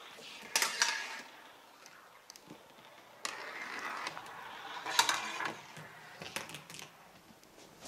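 A marble rolling along plastic Hot Wheels track, a rushing rattle in a few runs, with sharp clicks about five seconds in and again near the end.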